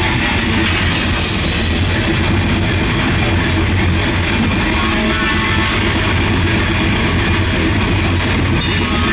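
Heavy metal band playing live, loud: electric guitars over a drum kit.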